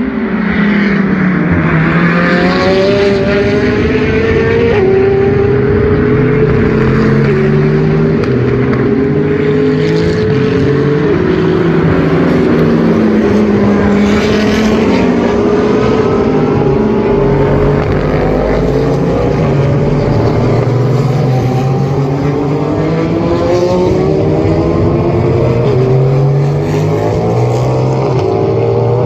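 Racing car engines running hard, several at once, their pitch rising through the revs and dropping sharply at gear changes as the cars pass.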